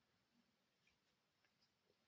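Near silence: room tone, with a few very faint light ticks.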